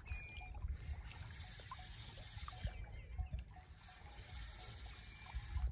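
Water trickling and lapping at a rocky shore, with faint clicks from a spinning reel being wound in on a small hooked fish.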